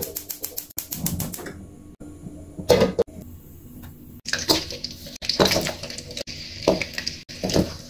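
A wok knocking and clinking on a gas burner, then from about four seconds in, hot oil sizzling steadily as vegan meat patties shallow-fry in the wok, with a few knocks.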